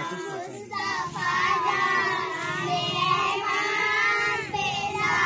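A group of children singing together, in long held phrases.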